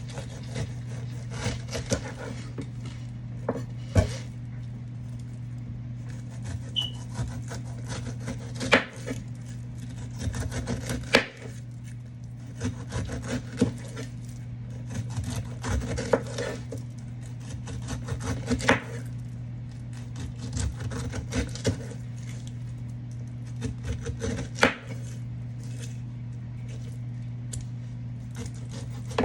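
Kitchen knife cutting fruit on a cutting board: irregular scraping strokes and a few sharp knocks of the blade on the board, over a steady low hum.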